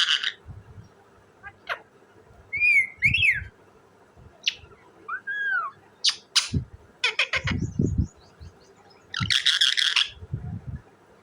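Ringneck parakeet (desi tota) calling: harsh screeches at the start and again near the end, with gliding whistles and sharp chirps in between. A few low thumps fall between the calls.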